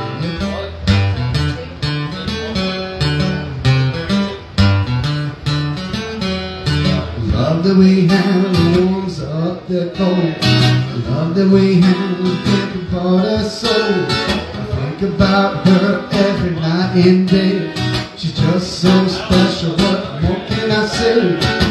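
Steel-string acoustic guitar strummed in a steady rhythm through an instrumental passage of a solo song.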